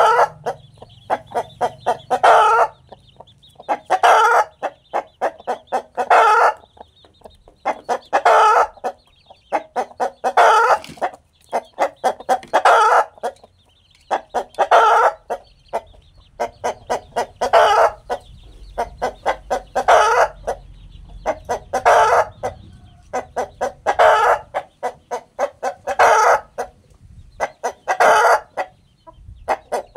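Rooster cackling: a run of quick clucks that speeds up into a loud squawk, repeated about every two seconds, the same pattern as a hen's egg-laying song.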